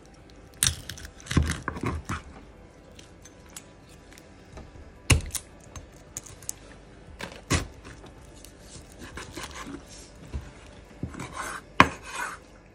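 Chef's knife cutting up a raw whole chicken on a bamboo cutting board: irregular sharp knocks of the blade striking the board and cutting through the carcass, with quiet handling sounds in between. The loudest knocks come about five seconds in and near the end.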